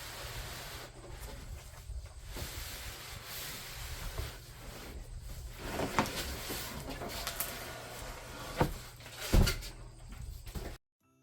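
Handling noise from unpacking a large boxed smoker: rustling with several sharp knocks, the loudest about nine seconds in. The sound cuts off abruptly near the end.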